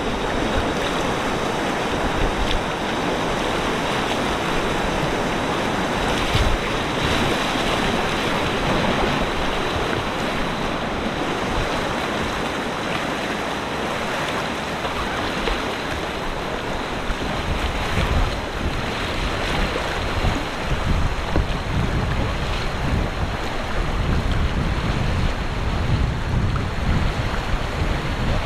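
Steady rushing of river whitewater, an even wash of water noise. Wind buffets the microphone with low rumbling gusts that grow stronger in the last third.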